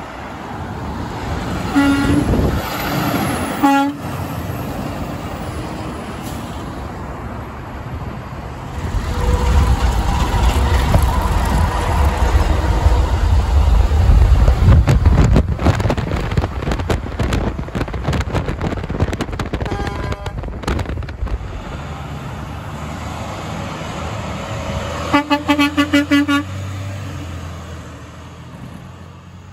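Truck air horns. A Peterbilt 388's Hadley air horn blows for about two seconds. Then a heavy truck's diesel engine rumbles close by for several seconds. Near the end, an International 7400 dump truck's Grover air horn sounds in a quick series of short toots.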